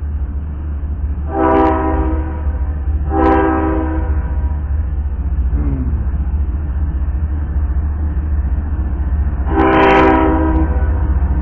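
Canadian Pacific diesel locomotive's air horn sounding for the grade crossing as the train approaches: two short blasts about a second and a half apart, then a longer, loudest blast about six seconds later. A steady low rumble runs underneath.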